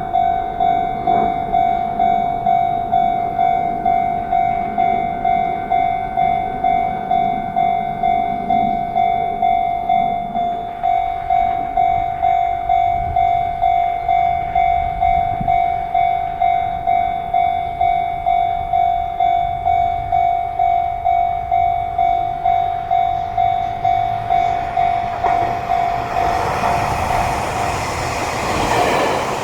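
Japanese level-crossing warning bell ringing steadily at about two strokes a second. Near the end the noise of an approaching train rises and covers it.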